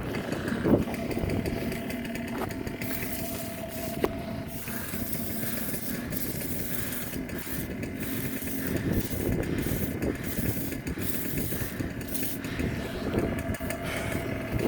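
Yamaha two-stroke ATV engine idling steadily, freshly kick-started after sitting for six months.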